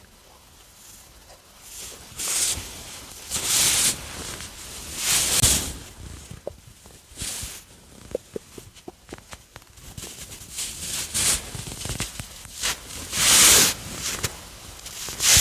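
Stomach gurgling and rumbling as it digests a meal, recorded close to the belly. Several louder rushing surges come and go, with a quick run of short gurgling pops about eight seconds in.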